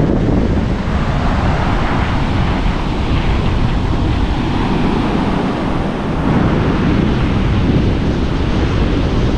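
Rough surf breaking steadily on the shore, with strong wind rumbling on the microphone.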